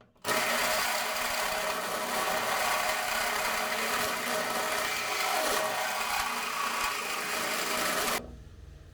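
A 1 3/4-inch hole saw on a power drill cutting through a vehicle bumper: a steady cutting noise that starts just after the beginning and stops abruptly about eight seconds in.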